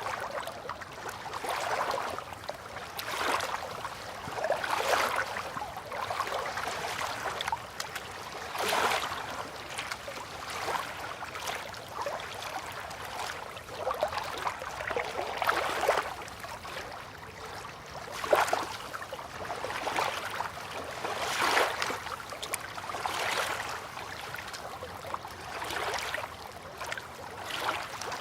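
River water lapping and splashing at the bank in small, irregular washes every second or two, with no steady tone under it.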